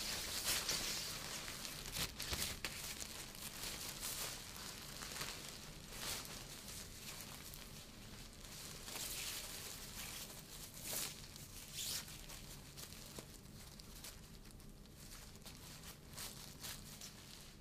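A yellow impervious disposable isolation gown rustles and crinkles as it is pulled on and tied at the back, making faint, irregular swishes, busier in the first few seconds.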